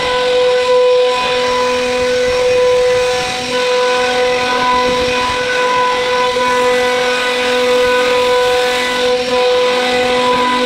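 CNC router spindle running with a steady whine while its bit cuts a groove along a wooden slab, with the rushing noise of the cut underneath; a lower hum comes and goes every couple of seconds.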